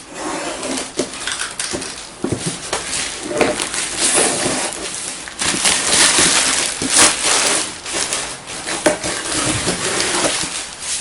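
Cardboard packaging of a boxed power drill being handled and unwrapped: continuous rustling and crinkling with many small knocks and scrapes.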